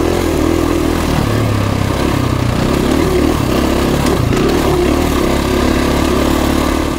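KTM 350 EXC-F single-cylinder four-stroke dirt bike engine running at a steady pace while the bike is ridden along a dirt trail, with a steady rush of noise over it.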